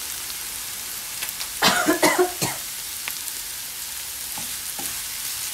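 Chopped onions and curry leaves sizzling in a Tefal granite-coated frying pan while a steel ladle stirs and scrapes them, with a few short scraping strokes. A brief louder burst of noise comes about two seconds in.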